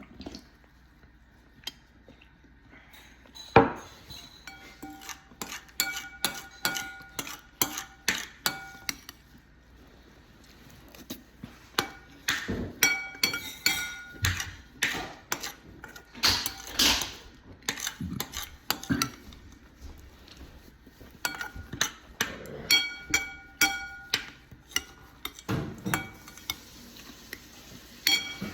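A spoon clinking and scraping against a bowl while eating cereal, in quick runs of taps, the bowl ringing briefly after many of them.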